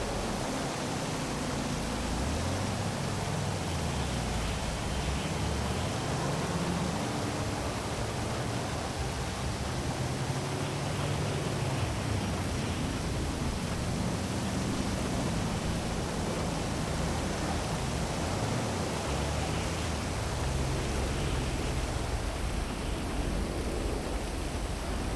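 Heavy rain falling as a steady, even hiss, with a low hum of city traffic underneath that slowly rises and falls in pitch.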